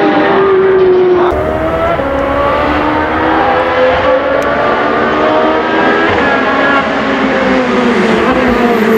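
About a second of a Ferrari F430 Challenge's V8 at high revs, then a Ferrari 458 Challenge's 4.5-litre V8 racing engine under power as the car comes toward the microphone on track. Its pitch climbs over the first few seconds, with a short click about four seconds in.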